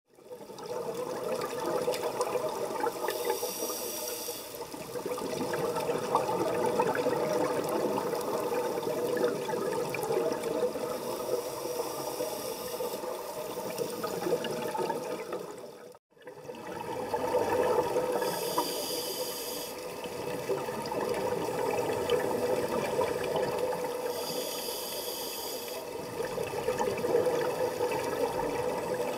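Underwater sound of a scuba diver breathing through a regulator: a constant gurgle of exhaled bubbles, and a hiss of inhaled air about every six seconds. The sound cuts out briefly about halfway through.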